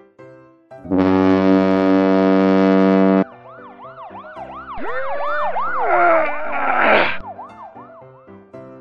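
A loud, steady, buzzy horn blast for about two seconds, then a police siren yelping in quick rising-and-falling sweeps that pile up and get louder before cutting off, over quiet background music.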